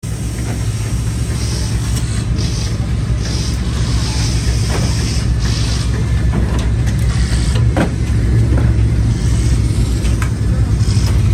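Dirt late model racing V8 idling steadily with a lumpy, even pulse, with a few short hisses over it.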